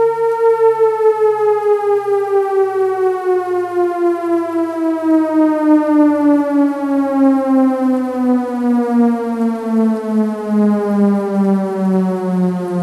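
Synthesized tornado-siren tone holding steady, then winding down, its pitch falling slowly and evenly, with a low throbbing pulse that slows as the pitch drops.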